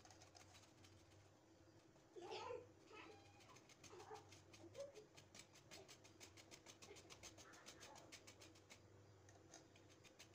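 Very faint: a block of cheese being rubbed on a flat stainless-steel hand grater, heard as soft, evenly spaced scrapes, with a short pitched call about two seconds in.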